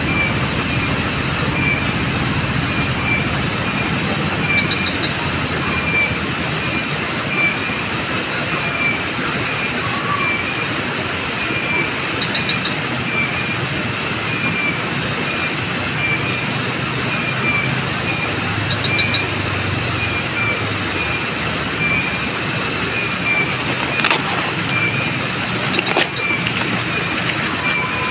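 Loud, steady chorus of insects droning, with a short high chirp repeating at a regular beat and a couple of brief knocks near the end.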